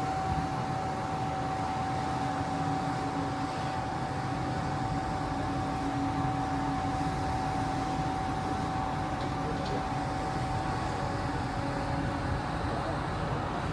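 Steady hum and rumble of the Sunflower Kurenai car ferry's engines and onboard machinery, with a constant mid-pitched tone running through it.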